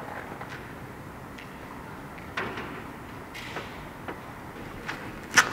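Steady background hiss with scattered faint clicks and knocks, a sharper knock about two seconds in, and one loud, sharp knock near the end.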